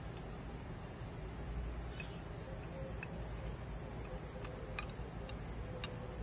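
Crickets chirping steadily in a fast, even trill, with a few faint clicks scattered through.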